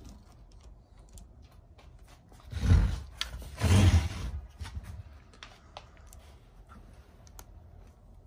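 E-bike battery's plastic case being slid and turned on a wooden workbench: two loud scraping rubs, about two and a half and four seconds in, with light clicks and knocks of handling around them.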